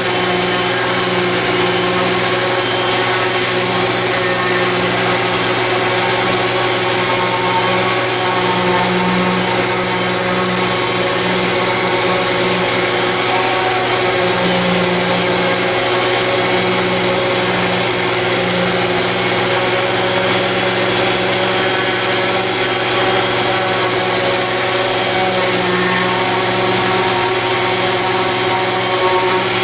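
Corded DeWalt DWE6421K 5-inch random orbit sander running steadily, its hook-and-loop sanding disc working a wooden guitar body: a constant motor whine over the hiss of the pad on the wood.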